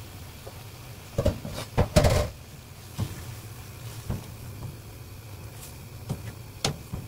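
A metal mesh skimmer knocks and clatters against a frying pan while blanched hijiki is scooped out of boiling water. There is a cluster of loud knocks a little after a second in, then single knocks about three, four and six and a half seconds in, over a low steady hum.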